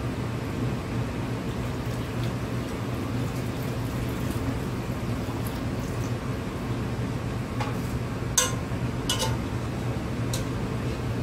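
Cooking liquid from a pot of boiled greens pouring into a sink over a steady background hum. Near the end come a few metal clinks from the aluminium pot, two of them sharp.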